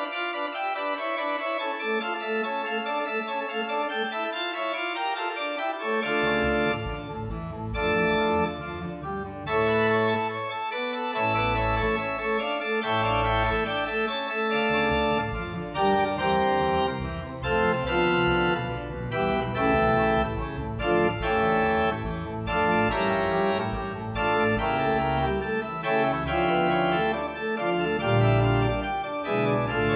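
Organ music: held chords in the middle and upper range, with deep bass notes joining about six seconds in.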